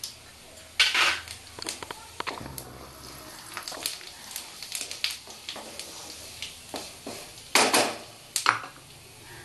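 Whole cumin seeds and a dried red chilli crackling and sizzling in hot mustard oil, tempering the oil, while a wooden spatula stirs them in a non-stick wok. Louder bursts come about a second in and again near the end.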